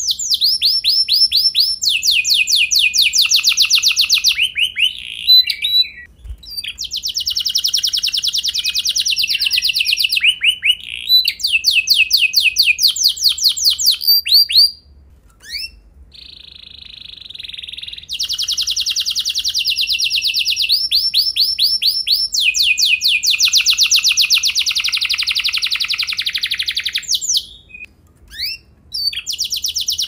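Domestic canary singing long rolling trills of rapid repeated high notes, broken by a few short pauses, one near the middle holding a softer, hazier phrase.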